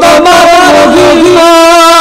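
A man singing a slow melody of a religious song into a handheld microphone, holding long notes with a slight waver and sliding between pitches.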